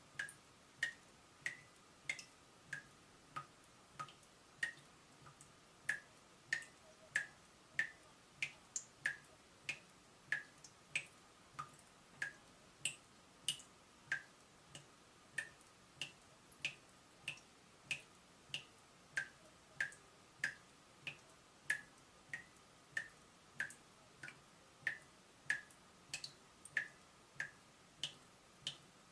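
Water dripping from a leaking tap: a steady run of short, pitched plinks, about one and a half drops a second.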